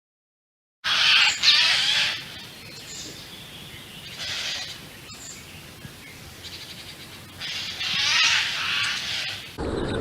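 Eurasian jay giving its harsh, rasping screech calls: a loud burst about a second in, a shorter one around four seconds, and a longer run of screeches near the end.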